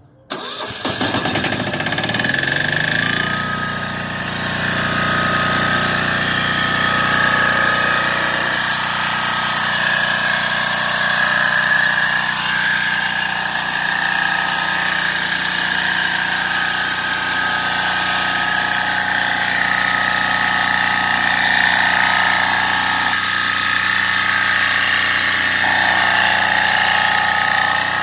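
Acme diesel engine on a portable generator starting suddenly, rising in speed over the first few seconds, then running steadily. It runs well, its injector nozzle freed after sticking.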